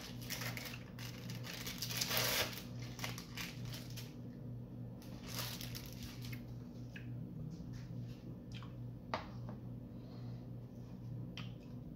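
Crinkling of a thin plastic wrapper being peeled off a cheese slice, loudest in the first couple of seconds and again briefly about five seconds in, then a few scattered light clicks and rustles. A steady low hum runs underneath.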